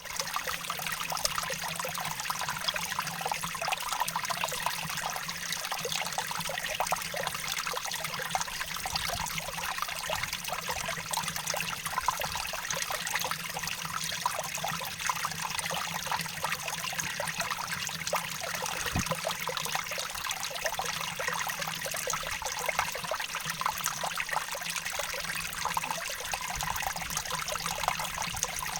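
Water running and splashing steadily in a natural stream or waterfall, an even rushing hiss with fine trickling detail.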